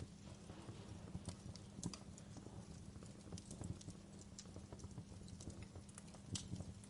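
Wood fire crackling in a fireplace: faint, irregular pops and snaps, with sharper cracks about two seconds in and near the end.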